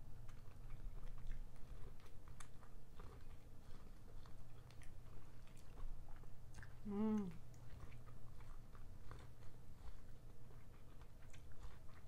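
Close-up biting and chewing of boiled corn on the cob, with many small crunchy clicks as the kernels are bitten off. About seven seconds in there is a short hummed "mm" that drops in pitch at the end.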